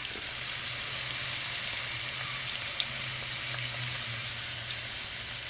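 Sliced onions, tomatoes and jalapeños sizzling steadily in a frying pan as they sauté.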